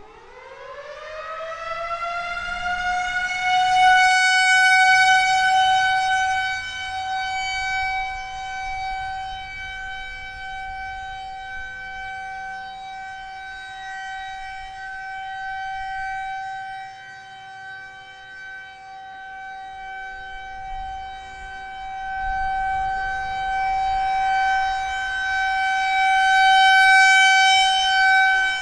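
Federal Signal 2001-SRNB outdoor warning siren sounding the steady Alert signal. It winds up at the start, its pitch rising over about three seconds to a steady high tone, then holds. The loudness swells, fades in the middle and swells again near the end as the rotating siren head turns; the siren is really loud.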